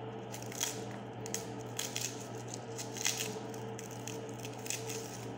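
Chef's knife cutting into a whole peeled onion held in the hand: a string of short, soft, crisp slicing sounds, several a second at times, over a steady low hum.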